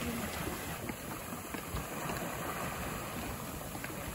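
Dragon's Caldron, a boiling hot spring, churning with a steady rushing, bubbling sound.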